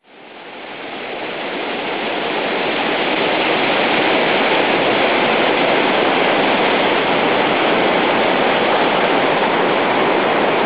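Floodwater of a swollen river rushing steadily, fading in over the first few seconds.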